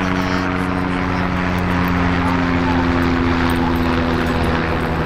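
A loud, steady engine drone made of several held tones, one of them slowly rising in pitch.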